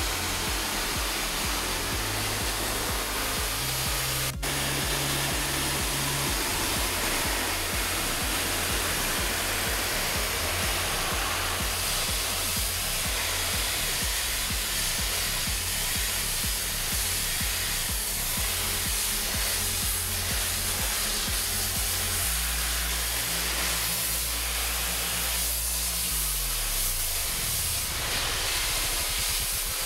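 Water jet from a spray gun hissing steadily as it rinses the felt wheel-arch liner of a car, with water pattering and dripping onto the floor. Background music with a bass line plays throughout.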